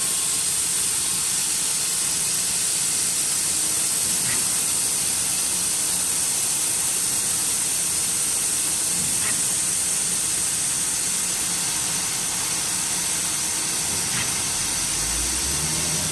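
Air hissing steadily out of a truck tire's valve stem as the valve core is held pressed, deflating the tire so its pressure sensor registers a drop during a tire pressure monitoring system relearn.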